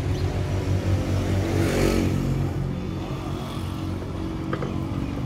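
Engine running steadily, with a brief rise in hiss about two seconds in.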